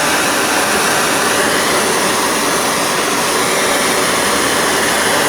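Propane torch burning with a steady, even hiss of flame, heating a copper pipe fitting for soldering.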